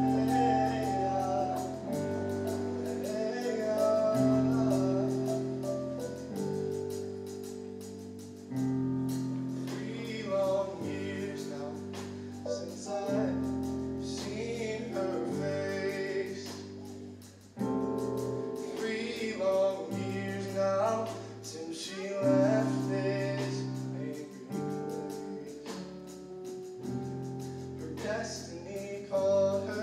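Show choir singing a slow song over live band accompaniment, with held chords and bass notes changing every second or two.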